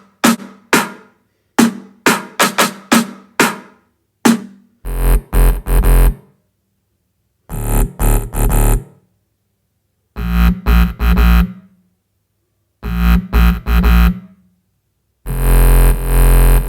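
Short snippets of music cut apart by full silences: first a run of quick keyboard or plucked notes, then several one-to-two-second bursts of electronic, drum-machine music with heavy bass.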